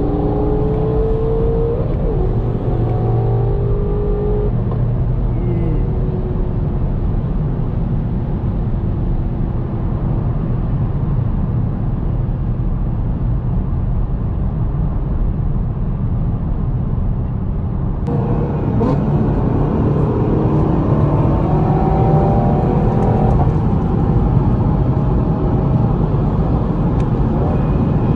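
Car engine and road noise of a moving car. The engine note climbs in pitch several times under acceleration in the first few seconds and again after an abrupt jump in hiss about 18 seconds in.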